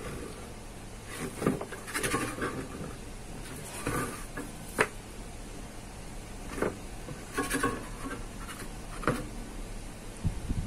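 Light handling noises: scattered soft rubs and knocks every second or so, with one sharp click about halfway through and a low thump near the end.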